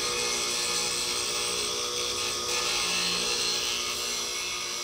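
Bench grinder wheel grinding the edge of a steel woodworking tool: a steady, gritty hiss over the hum of the grinder's motor, easing a little near the end.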